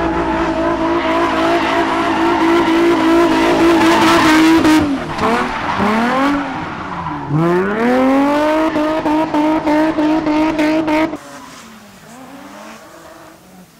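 Nissan 350Z drift car's engine held at high revs, with tyre squeal as it slides sideways. About five seconds in, the revs drop and climb back twice, then hold high again. Near the end it cuts off abruptly to a fainter drifting car's engine.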